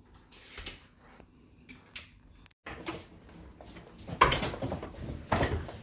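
Hotel room door being opened and luggage moved: scattered light clicks and knocks, then two louder thumps about four and five and a half seconds in.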